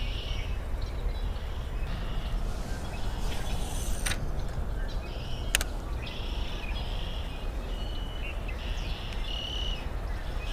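Outdoor ambience of songbirds singing in repeated short chirping phrases over a steady low rumble. Two sharp clicks about a second and a half apart near the middle.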